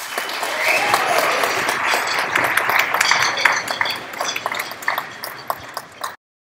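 Audience clapping after a school band piece, loud at once and thinning out, with a voice or two calling out near the start; it cuts off abruptly about six seconds in.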